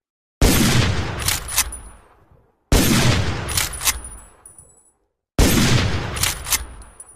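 Winchester Model 1895 lever-action rifle firing three shots about two and a half seconds apart, each with a long echoing tail. Each shot is followed by two quick metallic clicks of the lever being worked to chamber the next round.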